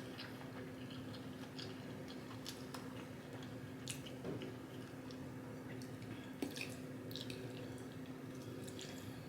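Close-up chewing and wet mouth sounds of someone eating, with scattered soft smacks and clicks. A faint steady hum runs underneath.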